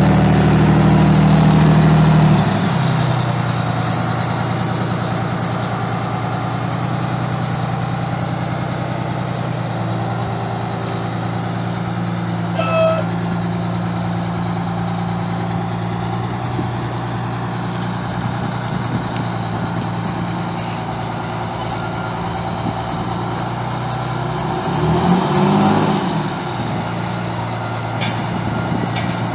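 Detroit Diesel 6V92TA two-stroke V6 diesel of a 1989 Pierce Arrow fire truck running. The engine speed drops about two seconds in and it settles to a steady idle, then revs briefly up and back down near the end.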